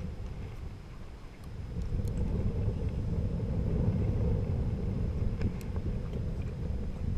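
Wind buffeting the camera microphone, a steady low rumble that grows louder about a second and a half in.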